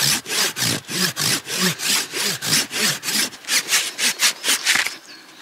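Hand saw cutting through a hard, woody tree burl in quick, even back-and-forth strokes, about four a second, which stop near the end.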